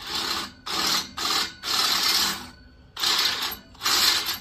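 DeWalt cordless drill boring into a hardened steel bolt, drilled dry without cutting oil. The bit grinds in short scraping bursts, about one every half second, as the trigger is pulsed.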